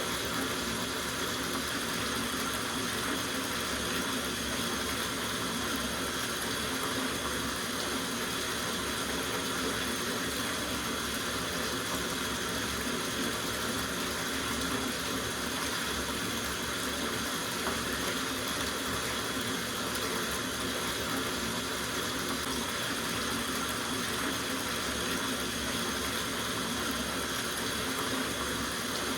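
Water running steadily from a tap into a soaking tub, an even rushing and splashing that does not change.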